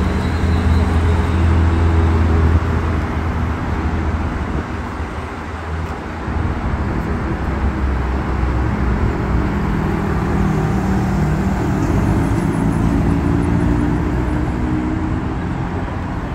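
City traffic on a wide avenue: cars passing close, engine hum and tyre noise, loudest in the first few seconds and swelling again around the middle to late part.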